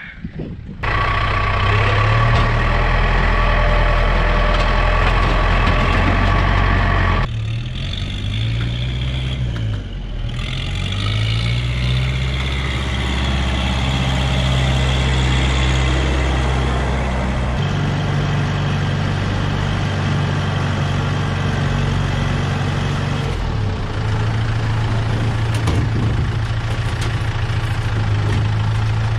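Farm tractor's diesel engine running as its front loader carries an aluminum rowboat. Engine speed dips and rises a few times about a third of the way in.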